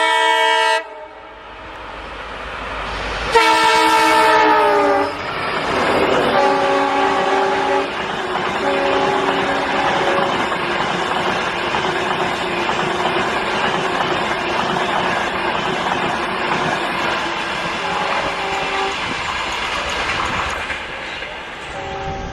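Indian Railways train horn sounding a chord, cut short less than a second in, then a longer blast starting about three seconds in that sags slightly in pitch. A train then runs past with a steady rushing rail noise and wheel clatter, and shorter horn notes sound several more times.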